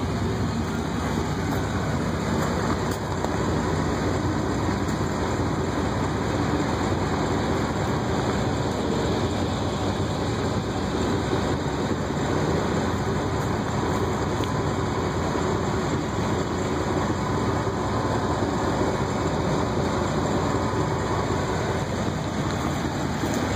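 Pickup truck engine idling steadily under a constant rushing noise, with no change throughout.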